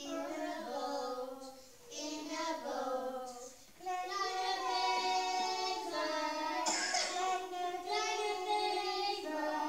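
Young children singing a song, in phrases with short breaks about two and four seconds in.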